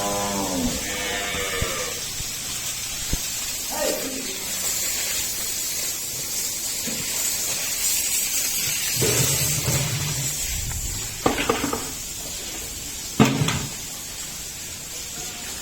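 A calf calls with a bleating cry at the start, rising and falling in pitch. A steady hiss and a few sharp knocks follow.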